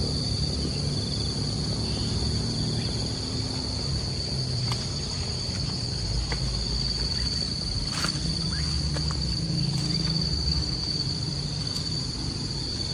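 Insects keep up a steady, high-pitched shrill drone, one unbroken tone, over a low uneven rumble.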